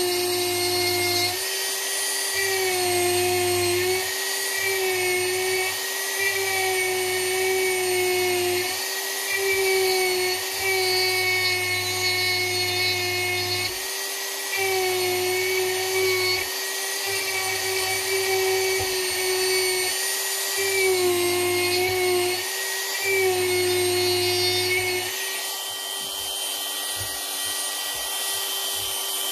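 Dremel rotary tool carving wood at high speed: a steady whine that dips and recovers in pitch over and over as the bit is pressed into the wood and eased off. For the last few seconds the whine holds steadier.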